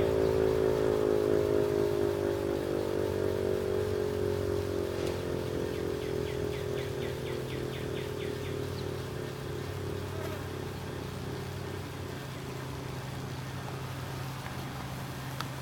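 Gryphon BS 2048 electric motor siren winding down after being switched off: its tone slowly falls in pitch and fades as the rotor coasts.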